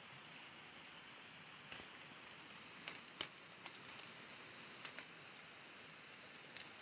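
Faint steady hiss with a faint high pulsing tone and a handful of short, scattered clicks.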